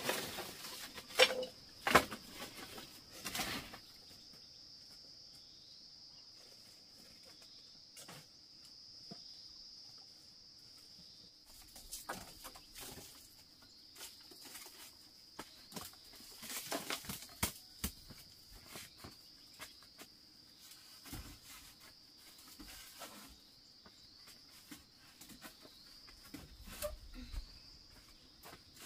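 Insects droning steadily at a high pitch, with scattered light knocks and rustling from someone moving about and handling things; two sharp knocks near the start are the loudest sounds.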